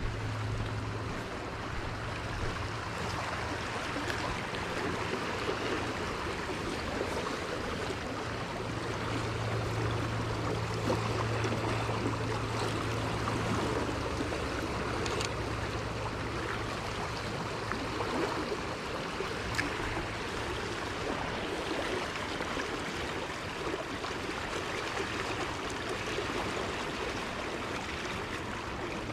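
Water of a stream or river running steadily, an even continuous rush, with a faint low hum that comes and goes and a few soft clicks.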